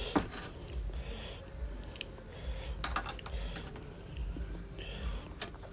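Sticky wet clicks and soft squelches of a raw oyster being dipped in a glass of chili sauce, with a metal spoon tapping and scraping in the glass. The clicks come irregularly, a few sharper ones standing out.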